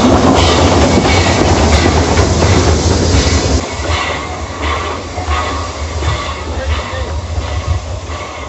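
OO gauge model train running on the layout's track: a steady motor hum and rumble of wheels on rail, with clicks as the wheels pass over rail joints. The running sound drops to a quieter level about three and a half seconds in.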